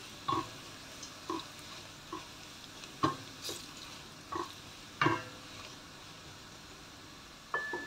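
Wooden spoon stirring fried onions and whole spices in hot oil in a stainless steel pot: a faint sizzle under irregular scrapes and knocks of the spoon against the pot, some with a brief metallic ring.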